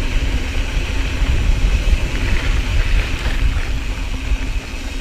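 Mountain bike rolling over a dirt trail, with a loud, steady wind rumble on the camera microphone.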